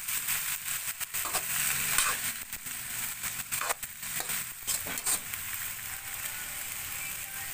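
String beans and shrimp sizzling in hot oil in a wok while a metal spatula stirs and scrapes them, sautéing. There are repeated scraping strokes through the first five seconds or so, then a steadier sizzle.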